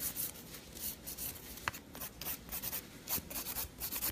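Hand nail file rasping over a gel nail in quick, short back-and-forth strokes, about three a second, shaping the nail by hand.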